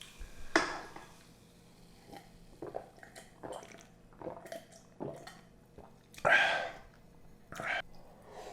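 A person eating fried rice, chewing, with short sharp eating noises between, the loudest about six seconds in.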